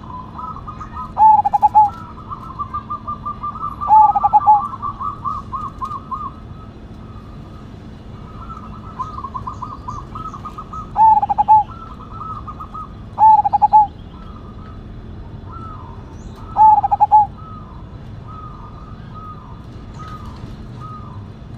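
Zebra dove (perkutut) singing: five loud, short cooing phrases spaced a few seconds apart, with softer, rapid stuttering coo notes running between them.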